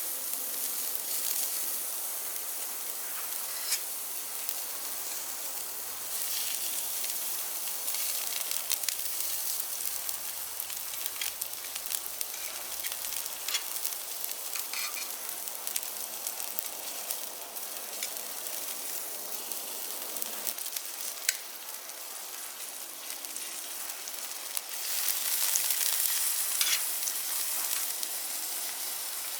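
Food sizzling on a barbecue grill: a steady frying hiss with scattered sharp crackles, growing louder for a couple of seconds near the end.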